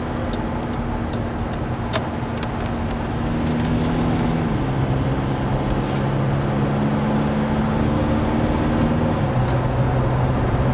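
VW Amarok's diesel engine and road noise heard from inside the cab while it pulls along in manual mode of its eight-speed automatic. The engine note drops twice, about four and a half and nine seconds in, as the gearbox shifts up a gear at low revs.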